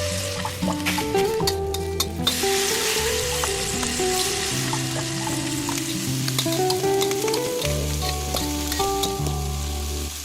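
Background music with a simple stepping melody and bass notes, over a constant crackling, sizzle-like noise with many small clicks.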